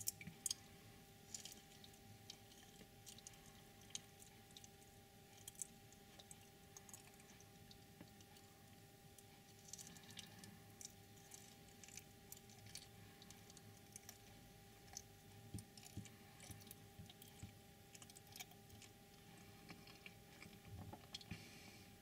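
A person biting off a piece of food and chewing it, faint wet clicks and crunches close up, the loudest bite about half a second in.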